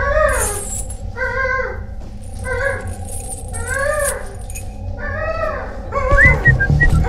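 A series of five wavering, wailing cries, one about every second and a half, over a steady low rumbling drone. Music with a low beat comes in about six seconds in.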